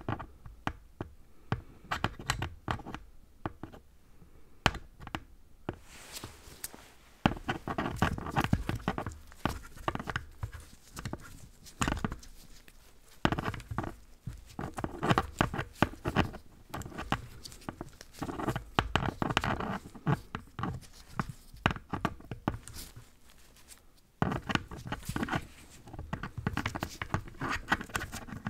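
Close-up tapping and rubbing by hands on the camera or microphone, irregular clusters of quick taps and rustles, with a brief lull about three-quarters of the way through.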